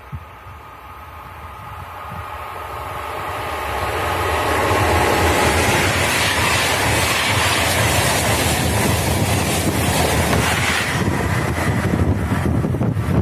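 Frecciabianca locomotive-hauled express passenger train approaching and passing at speed. A faint ringing from the rails grows into a rising rush that is loud and steady from about four seconds in. Near the end there is a ragged roar of wind on the microphone in the train's wake.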